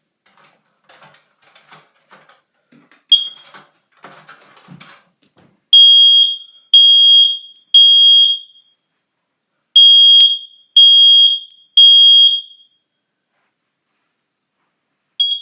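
Kidde 10SDR smoke alarm sounding its test. A short chirp comes about three seconds in, after faint handling clicks. Then the piezo horn gives two rounds of three loud, high beeps about a second apart, the temporal-three fire-alarm pattern, and one more brief chirp near the end.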